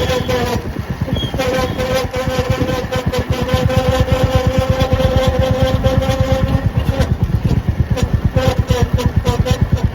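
Royal Enfield Meteor 350's single-cylinder engine running with a fast, even pulsing beat, joined for several seconds in the middle by a steady whine.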